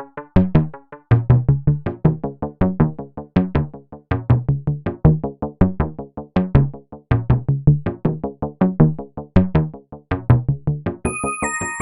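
Lively 80s-style synthesizer music: a fast, even run of short plucked synth notes over a bass line. Near the end a bright, stepping high synth melody comes in.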